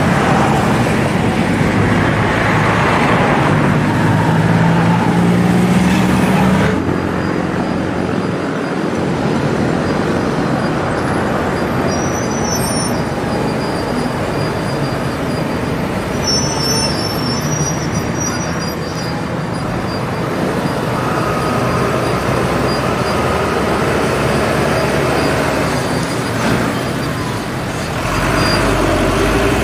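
Road traffic with heavily loaded diesel trucks passing. In the first few seconds a truck engine's pitch climbs as it pulls away. Steady traffic noise follows, until a loaded rigid cargo truck's diesel engine comes up close near the end.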